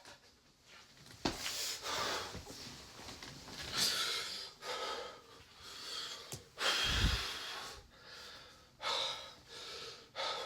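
A person breathing hard in a string of separate gasping breaths, about one every second or so, with a low thud about seven seconds in.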